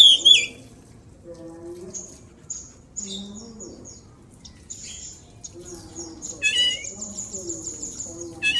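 Oriental magpie-robin (kacer) singing: scattered high chirps and whistles, then a louder call about six and a half seconds in that runs into a fast, high trill.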